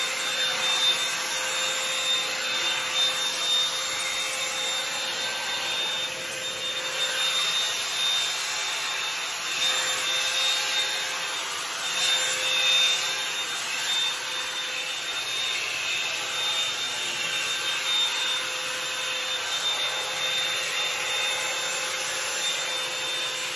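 Bed Head Blow Out Freak hot-air volume brush running, its fan blowing steadily with a thin steady whine, while the brush is drawn through hair.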